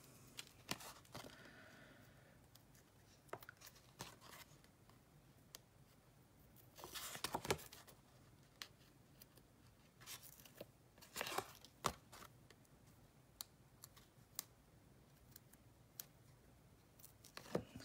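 Paper and card being handled: faint rustling with small taps, and a few short crinkly scrapes about seven and eleven seconds in.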